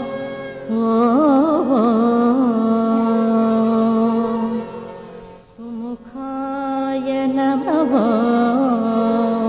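A woman singing a Carnatic devotional song to Ganesha: long held notes with quick ornamental turns of pitch about a second in and again near the end, and a short break just past the middle.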